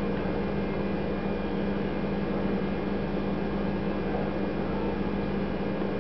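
Steady electrical-sounding hum over an even hiss, unchanging throughout, with no distinct events.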